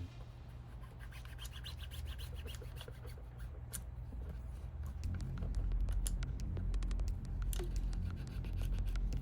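Hands working on an iPhone during a screen repair: rubbing and scratching with many small clicks, over a steady low hum that grows louder about halfway through.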